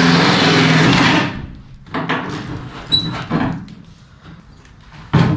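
Drill spinning a 3-inch hole saw through the car's hood for about a second, then stopping, followed by scattered knocks and clunks. The saw is wandering off its mark, so the hole cuts out wider than intended.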